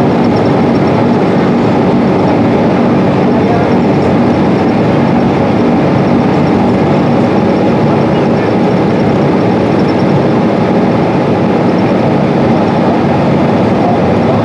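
Steady drone of a 2012 Gillig BRT transit bus heard from inside the cabin: its Cummins ISL inline-six diesel running evenly under way, mixed with road and tyre noise.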